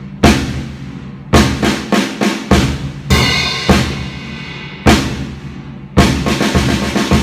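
Drum kit playing a march-style pattern: snare and bass drum strikes with ringing cymbal crashes.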